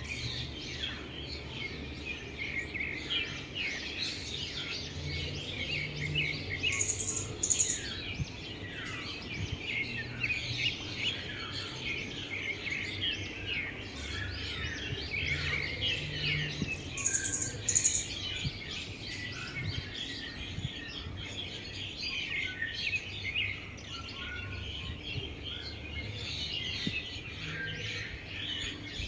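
Many small birds chirping and twittering together in a dense, continuous chorus. Twice, a loud pair of high, sharp notes stands out above it.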